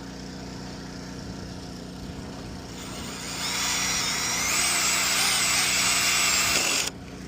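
Cordless drill driving a screw into a new bridge board: about three seconds in the motor starts with a whine that steps higher, runs for about four seconds, and cuts off suddenly. A steady low hum runs underneath.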